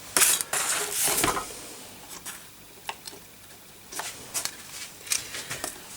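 A chip being handled and seated in a motherboard socket: a rustling scrape lasting about a second near the start, then scattered small clicks.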